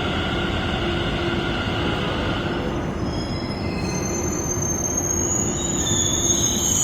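Metro train running along the platform with a steady rumble. A mid-pitched whine fades out about two and a half seconds in, and a high-pitched wheel squeal sets in about four seconds in and grows louder toward the end.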